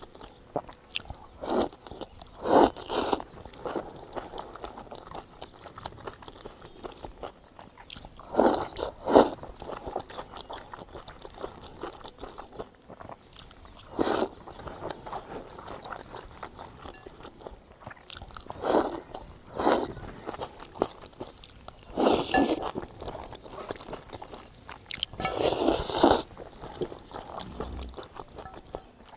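A person eating close to the microphone: scattered crunchy bites and chewing that come in short clusters every few seconds, with quieter chewing between.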